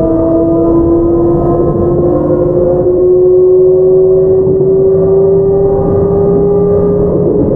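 Toshiba GTO-VVVF inverter and traction motors of a JR 681 series electric train whining under power, a steady tone slowly rising in pitch as the train gains speed, over the rumble of wheels on rail. Near the end the tone shifts.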